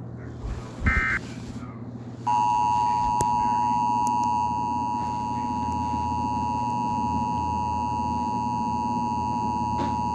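Emergency Alert System alert opening. The last short, buzzy data burst of the SAME header sounds about a second in. From a little after two seconds, the EAS two-tone attention signal plays: a steady, piercing pair of tones near 1 kHz held for about eight seconds, cutting off suddenly near the end.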